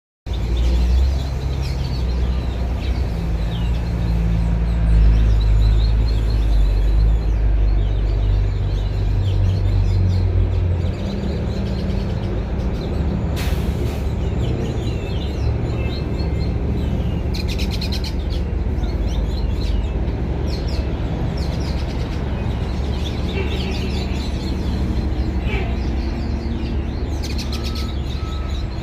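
Small birds chirping with many short, quick notes over a loud, steady low rumble.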